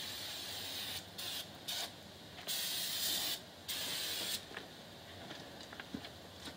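Aerosol brake cleaner hissing from the can onto brake shoes to clear grease off them: one long burst, three short spurts, then two longer bursts, stopping about four and a half seconds in.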